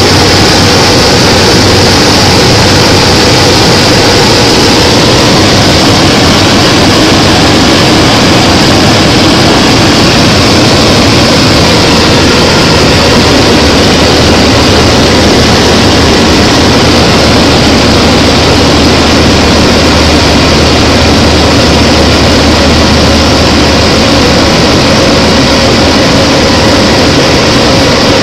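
Propeller aircraft's engine and propeller noise heard inside the cockpit in flight: a loud, steady drone with a low hum under an even hiss, unchanging throughout.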